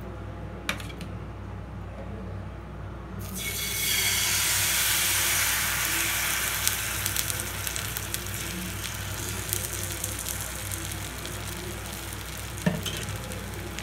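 Thin egg-and-flour batter poured into a hot oiled nonstick frying pan, starting to sizzle about three seconds in. It is loudest for the first couple of seconds, then settles into a steady frying sizzle as the dosa-like crepe cooks.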